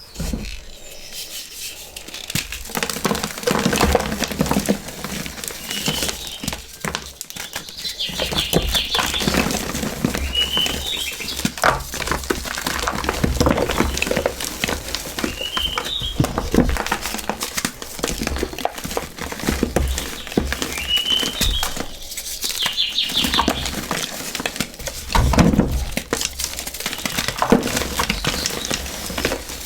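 Crispy, gritty material being crushed with a steady crackling and crunching, while birds chirp briefly now and again.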